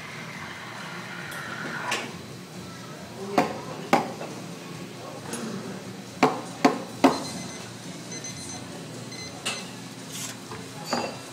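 Espresso machine running while a shot pours, under a steady café background, with about eight sharp clinks and knocks of cups and metal ware, three of them in quick succession a little past the middle.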